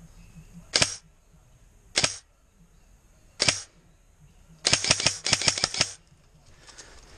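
Airsoft gun firing: three single shots about a second apart, then a rapid string of about ten shots.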